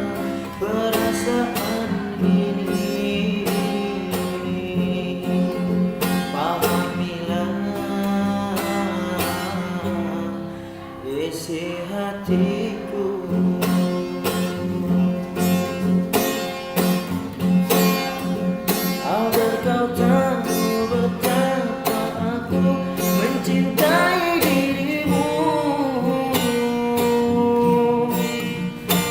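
High-school students singing a melodious song, their held notes wavering, with a strummed acoustic guitar accompanying.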